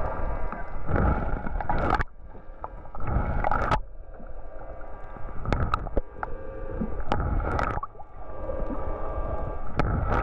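Muffled underwater sound picked up by a submerged camera: water rushing and gurgling in surges about every two seconds, over a steady hum, with a few sharp clicks.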